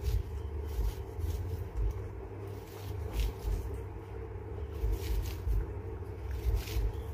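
Knife scraping kernels off a fresh corn cob, a few separate strokes at uneven intervals, over a steady low rumble.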